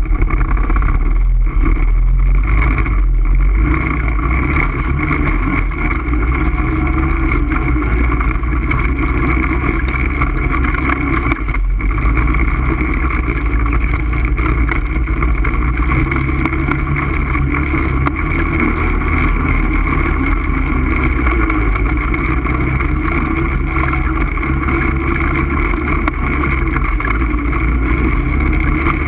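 ATV engine running loud and steady, its pitch holding fairly even, with a deep low rumble underneath.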